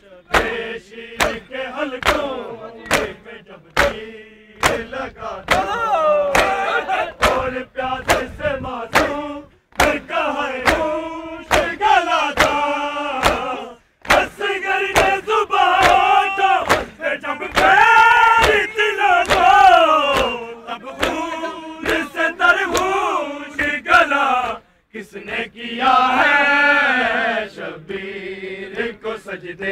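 A group of men chanting a Muharram noha lament in unison, with sharp chest-beating (matam) slaps keeping time at about two a second. The slaps come thick in the first half and fewer after a brief break in the chant about halfway through.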